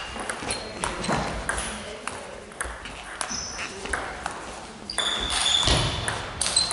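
Table tennis ball clicking off bats and the table during a rally: a string of short, sharp pocks at an uneven pace.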